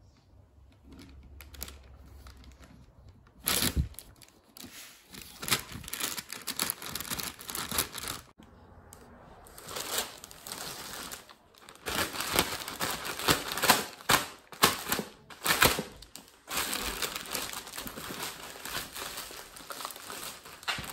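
Plastic poly mailer bag being slit with a pocket knife, torn open and handled: irregular crinkling and tearing, starting with a sharp loud rip a few seconds in and continuing as busy rustling.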